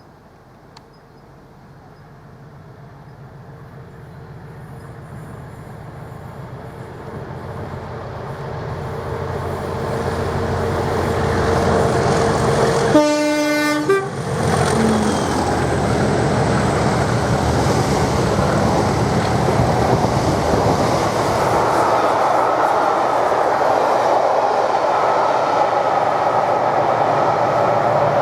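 Class 37 diesel locomotive growling closer under power until it is loud and passing, with a short horn blast about halfway through; the rumble of the engine and the wheels on the rails continues as the train goes by.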